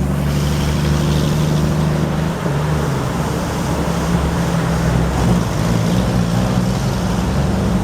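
An engine running steadily, its low hum shifting slightly about two and a half seconds in, over a continuous rushing noise.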